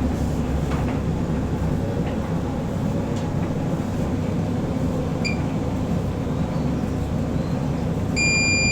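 Bosch heat-pump tumble dryer running just after starting its cycle, its drum turning a full load of towels with a steady low rumble. A short high electronic beep sounds near the end.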